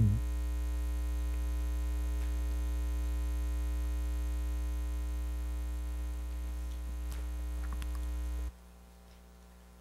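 Steady electrical hum with a buzzy stack of overtones. A few faint clicks come just before it cuts off abruptly about eight and a half seconds in.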